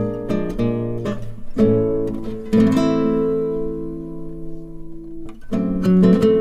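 Background music of plucked strings: picked notes, then a chord left ringing and fading through the middle, with quick picking resuming near the end.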